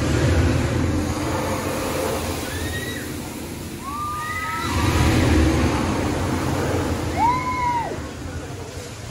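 A swinging pendulum ride rushing past with a whooshing rumble that swells twice as the arm sweeps through. Over it, riders let out short screams that rise and fall in pitch, several times.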